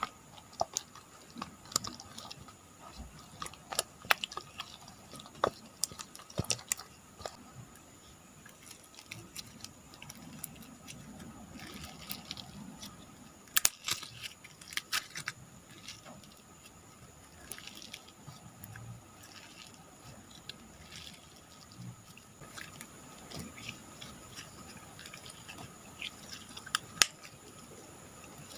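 Slime being squished, stretched and poked by hand, giving irregular wet clicks and pops, some sharper than others.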